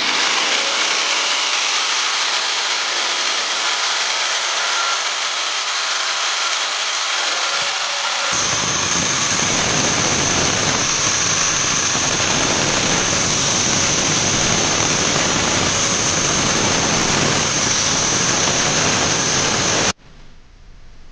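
Electric angle grinder running. From about eight seconds in, its abrasive disc grinds steel at a bicycle wheel hub with a steady high whine, throwing sparks. It cuts off suddenly near the end.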